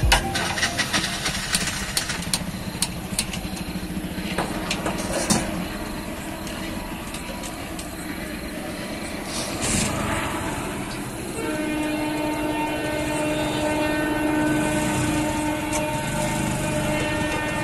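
Clinks and knocks of a steel spatula and utensils against a wok. About two-thirds of the way in, a long steady horn-like tone with several pitches starts and holds to the end.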